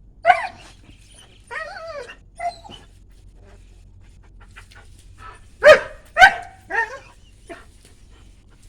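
A dog barking and whining: a short bark, a longer wavering whine, another short call, then three loud barks in quick succession about six seconds in.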